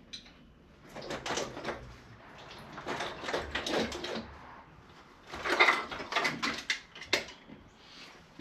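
Hand tools and metal engine parts clinking, knocking and rattling in irregular clusters as the intake manifold of a D15B engine is unbolted and lifted out of the engine bay. The loudest clatter comes about halfway through.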